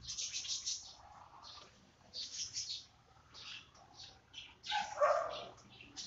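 Birds chirping in short high-pitched bursts, one every second or so, with a louder, lower-pitched sound about five seconds in.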